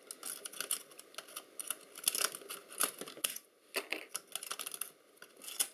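Irregular small clicks and taps of plastic and metal camera parts (levers, springs, little metal rods) being handled and pried loose during the teardown of a Polaroid Vision SLR camera, with a short pause near the middle.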